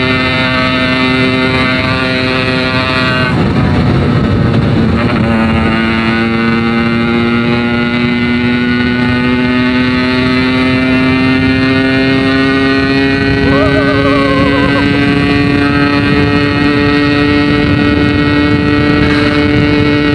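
Yamaha RX-King's 135cc two-stroke single-cylinder engine running loud through a Packing Power aftermarket exhaust while riding. About three seconds in the pitch drops, then climbs slowly and steadily as the bike pulls. A brief wavering tone sounds near the middle.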